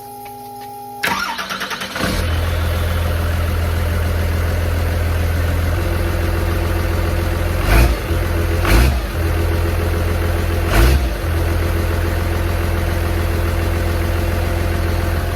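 Cummins diesel engine cranked over by the starter for about a second, catching and settling into a steady idle. Three short, louder surges come partway through.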